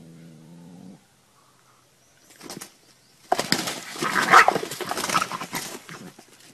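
A rooster's wings flapping hard as it flies at a dog: a loud flurry of wing beats and scuffling that starts about halfway through and lasts a couple of seconds. A low, steady hum is heard in the first second.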